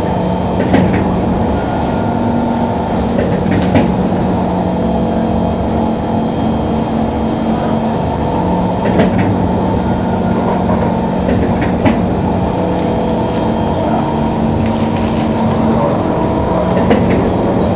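Inside a Singapore MRT train running along the line: a steady running rumble with a constant motor hum in several tones. A few sharp clicks come through at irregular intervals.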